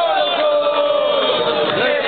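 Crowd of football supporters chanting together, many men's voices overlapping in a steady, loud chant.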